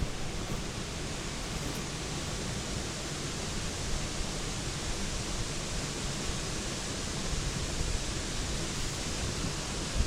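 Steady rushing of flowing river water, an even unbroken noise with no distinct events.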